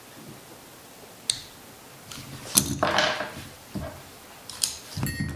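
Light metallic clicks and clinks of needle-nose pliers and a small steel AR-15 bolt being worked to drive out the extractor pin, with the sharpest click about two and a half seconds in and the pliers set down on the mat.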